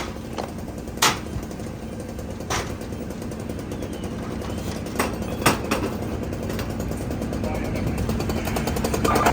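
Sharp knocks and bangs at irregular intervals, about six of them, over a steady engine drone at a working structure fire.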